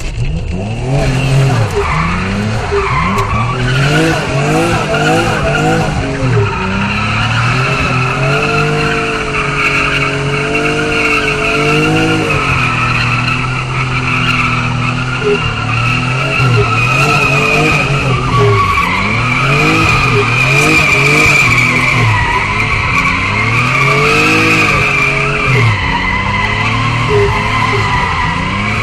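Nissan Cefiro A31's swapped-in RB26DETT twin-turbo straight-six, heard from inside the cabin, revving up and down again and again as the car is drifted. The tyres squeal almost without a break from about half a second in.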